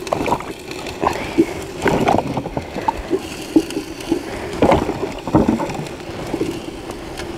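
Water sloshing and splashing in a plastic basin as hands lift washed potatoes out of it and into a cooking pot, in irregular bursts.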